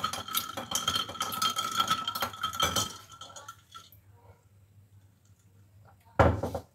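A spoon stirring ice cubes in a glass mug of lemon sharbat, rapid clinking and rattling with a ringing glass tone, for about three seconds. It then goes quiet, and there is one loud clink near the end.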